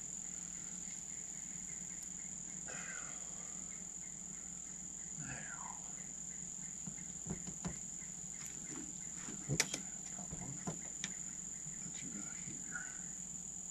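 Steady high-pitched chirring of crickets. Around the middle come a few short clicks and taps as screws are set with a cordless drill into a metal bus panel.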